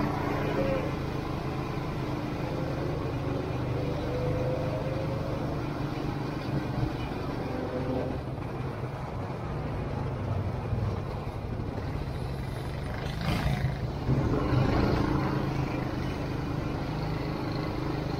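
ATV engines running steadily, one rising slowly in pitch a few seconds in as it speeds up, with a brief rush of noise about thirteen seconds in.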